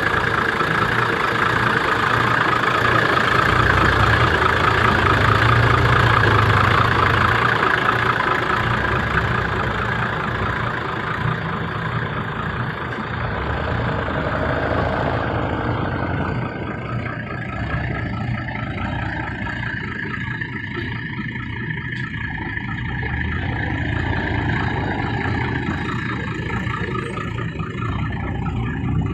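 An old dump truck's engine idling steadily with its hood open, louder in the first half and quieter from about halfway through.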